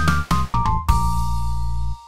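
Short outro music sting: a few quick notes stepping down in pitch over drum hits, then a held chord with a deep bass from about a second in.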